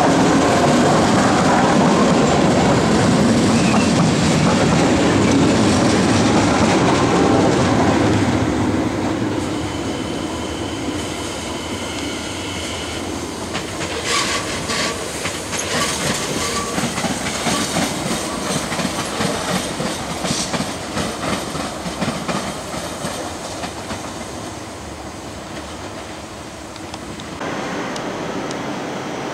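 NS Sprinter electric multiple unit running over the station trackwork: a loud rumble that eases off about eight seconds in, a high whine for a few seconds, then a run of wheel clicks over rail joints and points.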